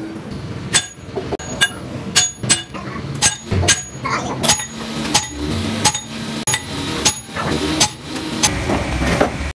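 Repeated hammer blows on the steel of a truck suspension trunnion shaft assembly, about two a second, each a sharp clank with a bright metallic ring.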